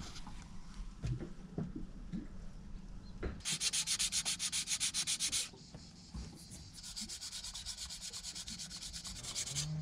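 Sandpaper rubbed by hand over a repaired patch on a sailboat's bow, in quick back-and-forth strokes of about six a second. There are two bouts: the first starts about three and a half seconds in and stops about two seconds later, and the second picks up after a short pause and runs almost to the end.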